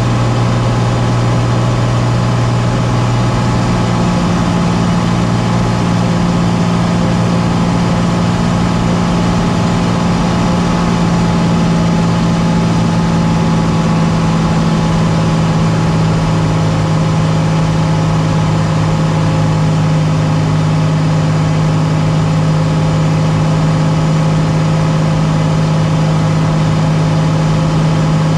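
Light aircraft engine and propeller running steadily; about four seconds in the engine note steps up in pitch and then holds there.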